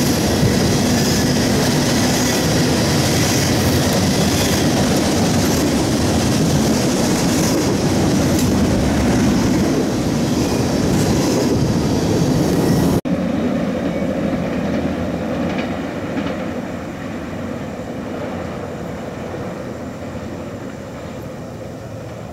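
Freight train cars rolling past close below, a loud steady rumble and rattle of wheels on the rails. About halfway through the sound drops suddenly, and the train's rumble then slowly fades as it moves away.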